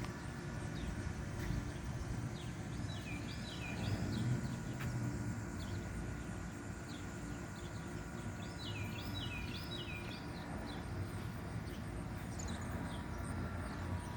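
A 2002 Whirlpool Gold window air conditioner running steadily on low fan speed, its fan and rotary compressor giving a low hum with a few faint steady tones. A bird chirps in two quick runs, about three seconds in and again around nine seconds.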